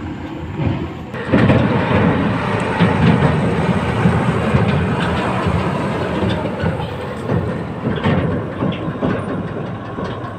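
A heavy vehicle running on a rough road, its engine noise mixed with loud, irregular rattling and clanking that starts abruptly about a second in.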